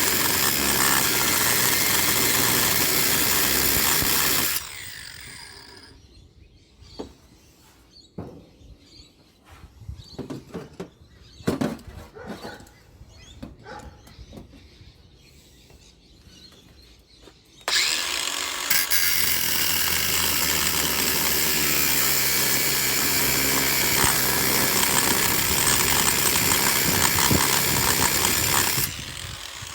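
A power tool cleaning scrap brass, running steadily. It shuts off about four and a half seconds in and winds down, leaving a stretch of light knocks and clicks. It starts again suddenly about eighteen seconds in and runs until just before the end.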